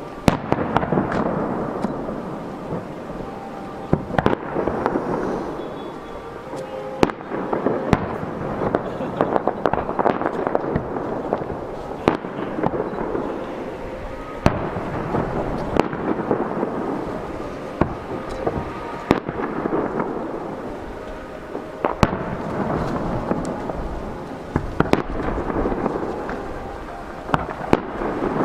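Aerial firework shells bursting in a continuous barrage, with sharp bangs every second or two. Booms echo and rumble on between the bangs.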